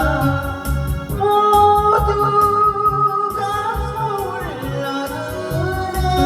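Korean trot song: a woman singing one long held note over a backing track with a steady drum beat, then sliding down about four seconds in.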